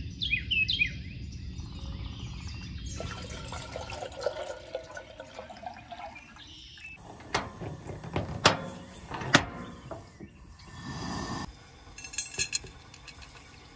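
Birds chirp in the first second, then water runs into a stainless steel kettle. Around the middle come three sharp clanks, followed by a short rush of poured water and a few light ticks near the end.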